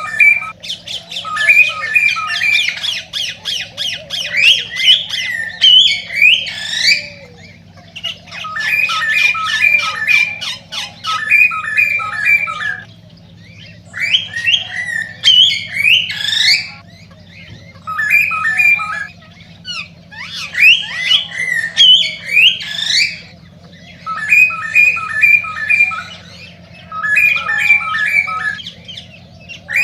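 Male cockatiel singing its courtship song: repeated phrases of quick pulsed notes, fast chattering runs and rising whistled swoops, broken by short pauses every few seconds. This is the excited song a male gives before mating. A faint steady low hum runs underneath.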